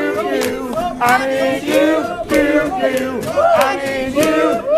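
A group of people singing together along with a strummed acoustic guitar, with sharp regular beats under the voices.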